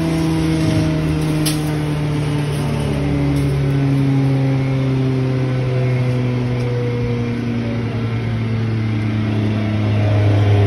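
Electric glass grinder machine (a hammer-mill pulverizer with a half screen) running, with a steady mechanical hum whose pitch slowly falls.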